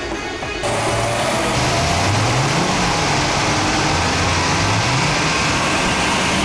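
Mitsubishi Lancer 2.0 GT running hard on a chassis dynamometer, its engine and the spinning rollers and tyres making a loud, steady noise that starts abruptly just under a second in. Background music plays underneath.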